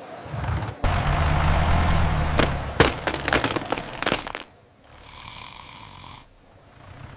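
Cartoon snoring sound effect: a long low rumbling snore with crashing and sharp clattering knocks over it, then a high whistling exhale. The rumble-and-whistle starts over near the end.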